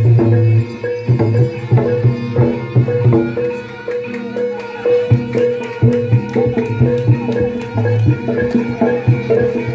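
Live Javanese gamelan accompanying a Barongan dance: hand-drum (kendang) strokes in a fast rhythm over ringing metal gong-chime tones, with a slightly quieter stretch about four seconds in.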